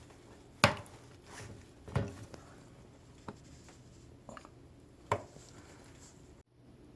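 A few sharp, separate knocks and clicks from hands working on a front-loading washing machine's door seal. The loudest comes about half a second in, with others at about two and five seconds and smaller taps between.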